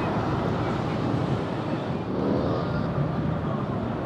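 Cars cruising slowly through a parking lot: a steady low engine and road noise.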